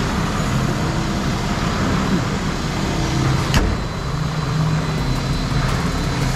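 2021 Ram 2500 pickup's engine running steadily at idle with the hood open, with a single sharp click about three and a half seconds in.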